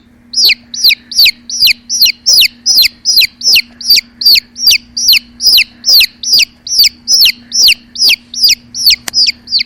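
Domestic chick peeping: a rapid, evenly repeated series of loud high-pitched peeps, each sliding sharply downward, about two to three a second, with a faint low steady hum underneath.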